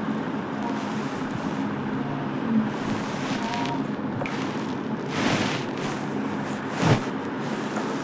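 Steady background hum and hiss, with two short whooshing swells of noise about five and seven seconds in.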